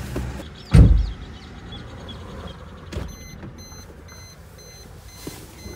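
A car door shut with a heavy thump about a second in, then the car's electronic warning chime beeping in an even, quick run, a little over two beeps a second.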